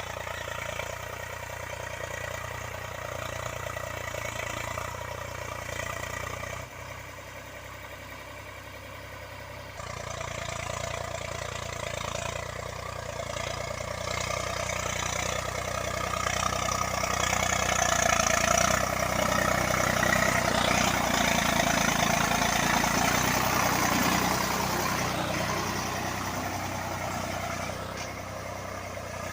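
Eicher 485 tractor's three-cylinder diesel engine running steadily while ploughing. It drops quieter for a few seconds about seven seconds in, grows louder through the middle and eases off near the end.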